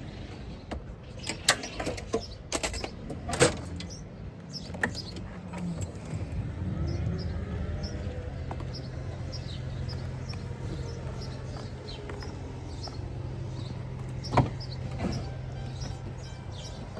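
Clicks and knocks like a vehicle door and keys, then a car engine starting up about six seconds in and running steadily at idle. A few more sharp knocks come near the end.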